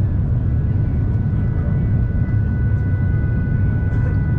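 Airbus A350-900 cabin noise in descent, heard through the window seat: a steady low rumble of airflow and engines with a faint, steady high whine above it.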